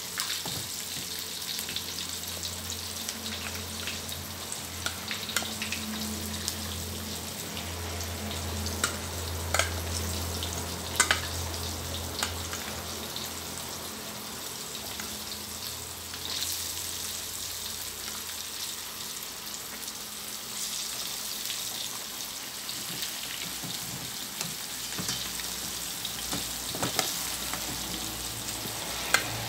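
Flour-coated chicken wings deep-frying in hot oil in a wok: a steady sizzle with scattered crackles and a few sharper pops.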